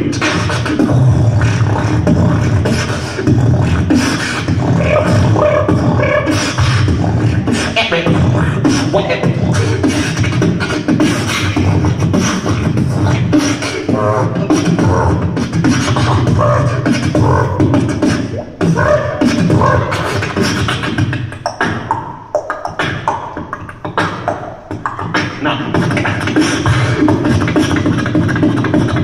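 Beatboxing into a handheld microphone: a steady stream of rapid, rhythmic vocal percussion with deep bass pulses and sharp clicks, some pitched vocal sounds mixed in. From about 18 to 25 seconds in, the beat turns sparser and choppier before filling back out.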